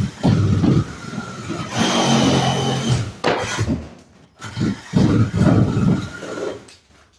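Demolition on a fire-damaged bedroom wall: a power tool runs in short bursts, stopping and starting about three times, amid rough scraping of the wall material.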